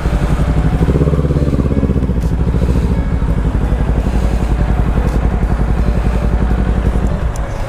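Big-bike motorcycle engine idling with an even pulsing beat; it drops a little in level near the end.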